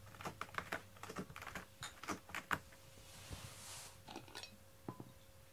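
A run of light clicks and taps, with a soft rustle lasting about a second around three seconds in and a few more taps after it.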